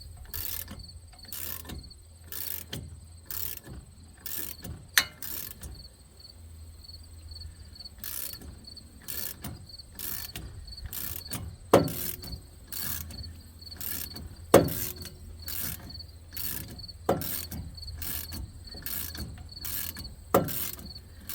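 Repeated sharp metal-on-metal strikes, about one every 0.7 s, with five heavier blows that ring briefly. This fits hammering on a truck's front wheel hub assembly to free it.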